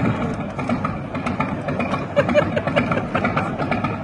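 An engine idling steadily, with people talking over it.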